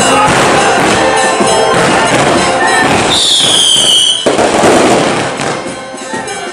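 Daytime festival fireworks crackling rapidly and loudly over music. About three seconds in, a whistling firework sounds for about a second, falling slightly in pitch, then cuts off abruptly.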